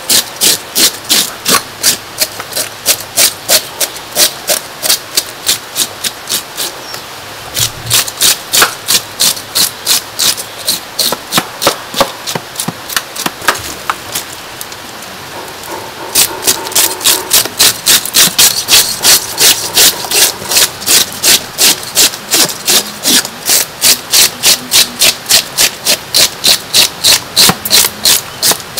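Metal fish scaler scraping the scales off a large grass carp in rapid back-and-forth strokes, about two to three a second, with short pauses twice.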